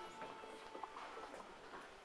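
Faint scattered taps and light rustling in a quiet room, with the last note of music fading out at the start.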